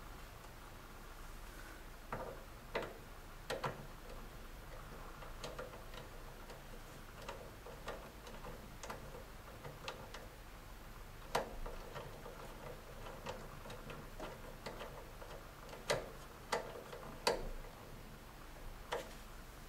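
Faint, irregular small clicks and ticks as a wire is screwed into a plastic screw terminal block on a K40 laser cutter's power supply, about a dozen in all, the sharpest near the middle and in a cluster near the end.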